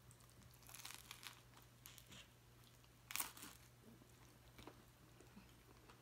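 Faint crunching and chewing of a mouthful of turkey avocado BLT sandwich on toasted bread, with a louder crunch about three seconds in.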